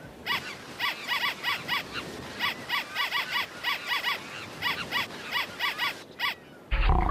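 A run of short, animal-like chirping calls, each rising and falling in pitch, coming in uneven clusters of about three a second over a faint outdoor-sounding background. Near the end, a sudden loud, noisy blast cuts in.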